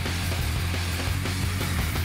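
Rock music with electric guitars and a strong bass line playing steadily.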